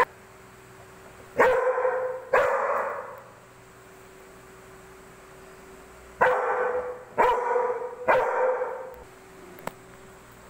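Yellow Labrador retriever barking: two barks about a second and a half in, then three more in quick succession about six seconds in. A sharp click right at the start.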